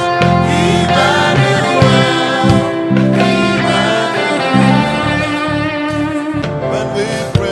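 Gospel worship music: a band playing an instrumental passage with low bass notes under sustained chords.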